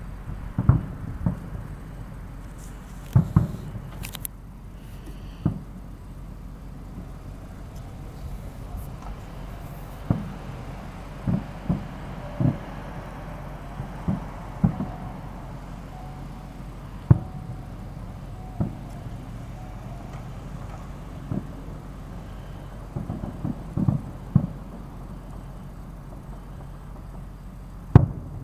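Distant aerial fireworks shells bursting: irregular booms, sometimes several in quick succession, over a steady low rumble.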